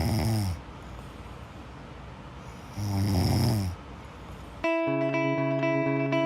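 A person snoring: one low buzzing snore ends about half a second in, and a second comes about three seconds in. Music cuts in suddenly near the end.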